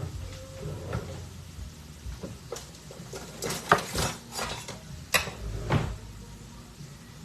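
Kitchen clatter: a scatter of clinks and knocks from utensils and cookware, the sharpest about three and a half and five seconds in.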